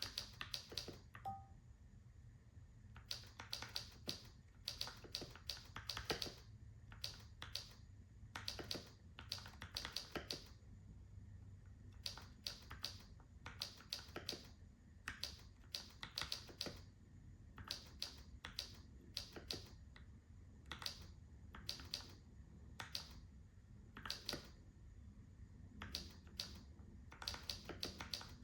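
Typing on a Keychron K4 v2 mechanical keyboard with Gateron G Pro brown switches: keys struck one at a time at an uneven pace, in short runs separated by brief pauses.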